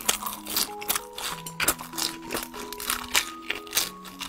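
Close-miked chewing and smacking as someone eats meat, in a run of short, crackly, wet mouth sounds, over background music with a simple melody.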